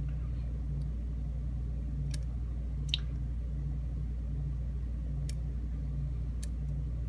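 A few faint, sharp clicks of a lock pick working the pin stacks of a Schlage five-pin mortise cylinder, over a steady low hum.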